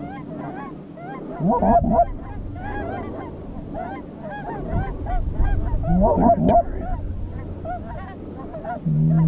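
A flock of geese honking and clucking, many overlapping calls in quick succession, with louder bunches of calls about one and a half seconds in and again around six seconds in.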